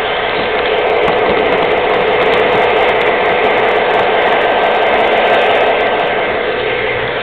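Model train running along its track, heard close up from a camera riding on it: a steady whir from its small electric motor and wheels on the rails, with light irregular clicks.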